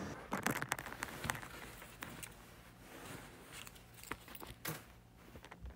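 Crinkling of a thin plastic snack wrapper as it is handled, in a run of sharp crackles. They are loudest in the first second and a half, then fainter and more scattered.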